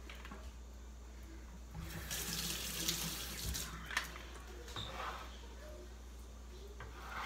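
Kitchen faucet running into the sink for about two seconds, starting about two seconds in, then turned off, followed by a few light clicks.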